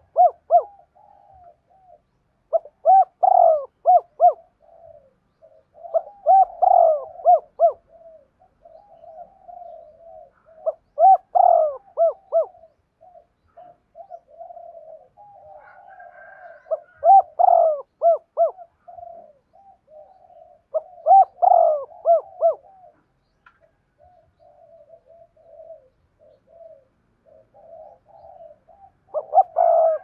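Spotted dove crowing: a male decoy giving the 'hai hậu' (two-tail) call used to lure wild doves. Loud coo phrases repeat every few seconds, with softer coos and gurgling notes between them.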